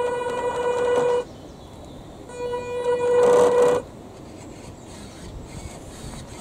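Two long beeps at the same steady pitch, about a second apart, the second ending with a short whirr.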